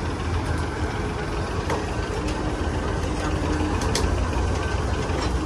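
Heavy diesel truck engine idling, a steady low rumble.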